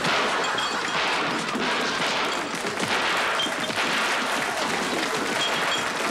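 Audience applauding, a steady, dense clapping that holds an even level throughout.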